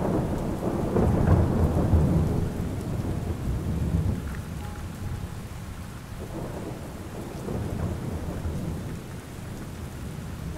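Steady rainfall with a long roll of thunder, loudest in the first few seconds and dying away about four seconds in, leaving the even patter of rain.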